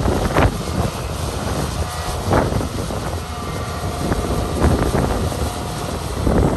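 Heavy diesel construction machinery, an excavator and dump trucks, running with a dense low rumble. A faint steady whine comes through in the middle, and there are a couple of sharp knocks, one just after the start and one a little over two seconds in.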